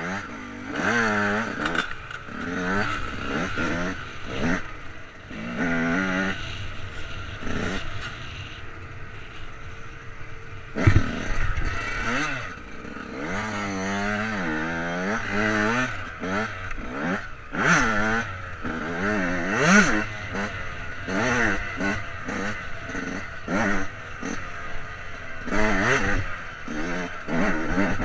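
Dirt bike engine being ridden hard over rough trail, the revs rising and falling again and again as the throttle is opened and closed. A sharp knock about eleven seconds in.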